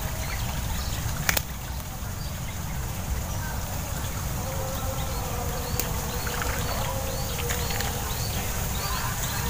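Many short high chirps repeating over a steady low rumble, with one sharp click about a second in.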